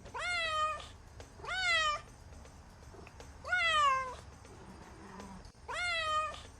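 A domestic cat meowing four times, a couple of seconds apart, each meow under a second long, rising then easing down in pitch.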